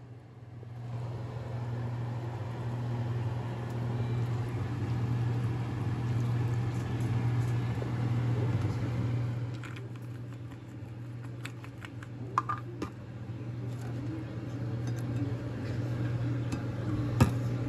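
A steady low mechanical hum with a rushing noise, starting about a second in, with a few light clicks near the middle and again near the end.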